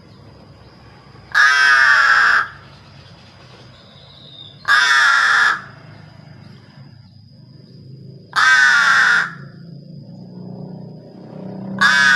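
A bird giving loud, harsh, caw-like calls: four calls of about a second each, spaced roughly three and a half seconds apart.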